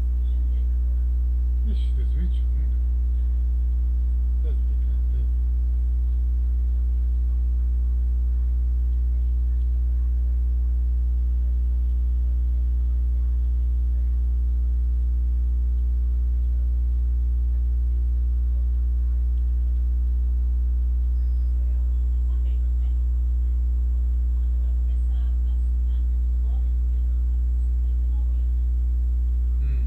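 Loud, steady electrical mains hum with a stack of even overtones, unchanging throughout, with a few faint murmurs beneath it.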